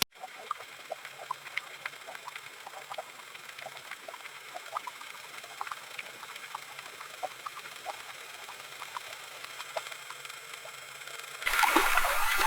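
Boat rocking on water: quiet lapping against the hull with scattered small irregular clicks and creaks. A much louder steady hiss of water sets in near the end.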